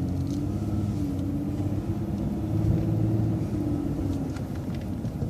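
City transit bus running along the street, heard from on board: a steady low rumble of engine and drivetrain with a faint hum that drifts slightly in pitch.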